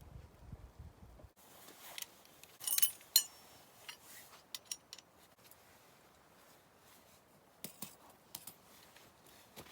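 Scattered light clinks and knocks of small hard items being handled, with a brief ringing clink about three seconds in.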